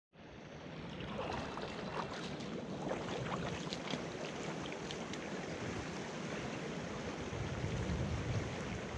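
Shallow river running over rocks, a steady rushing. Splashing wading footsteps through shallow water come in the first few seconds.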